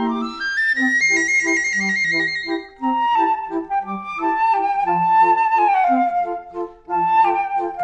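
Background music: a high melody line that climbs in steps about a second in and slides down near the middle, over a bouncy accompaniment of short repeated low notes.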